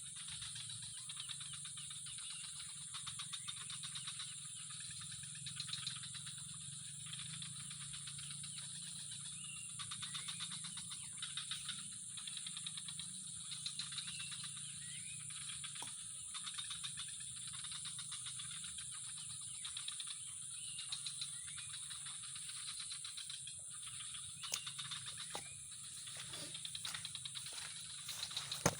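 Dense chorus of calling animals: a steady high insect trill, with rattling pulses that swell every couple of seconds and a few sharp clicks near the end.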